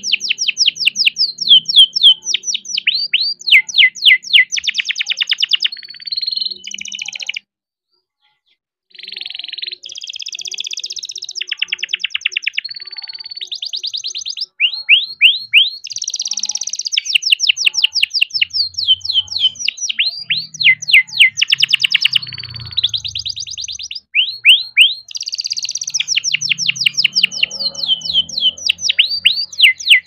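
Young male domestic canary singing a long rolling song: fast trills of repeated rising notes that switch from one trill type to the next, broken by a short gap about seven and a half seconds in.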